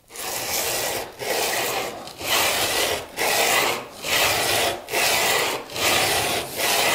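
Flat back of a steel wood chisel rubbed back and forth on dry, coarse 100-grit sandpaper glued to a board, to flatten the back. It makes a scraping stroke about once a second, with a short break at each change of direction.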